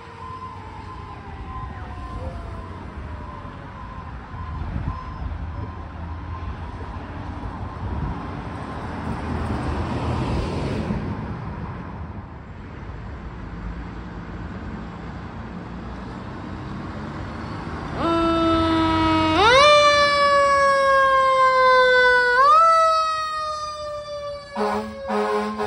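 Fire engine siren: a siren fades and drops in pitch at first over road traffic, with a car passing. Later a loud siren starts close by, winding up in rising sweeps, followed by a few short horn blasts near the end.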